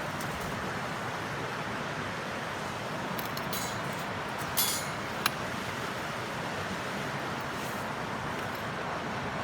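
A wood fire burning with a steady hiss, with a few short crackles in the middle and one sharp pop about five seconds in.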